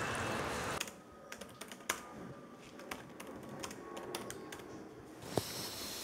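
A brief wash of canteen background noise cuts off sharply under a second in. It gives way to typing on a computer keyboard: scattered key clicks at an uneven pace.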